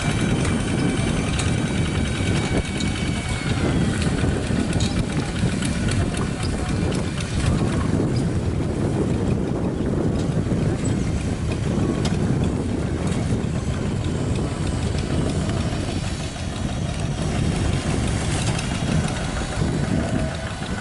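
A two-wheel hand tractor's single-cylinder diesel engine running steadily under load as it pulls a plow through wet rice-field soil.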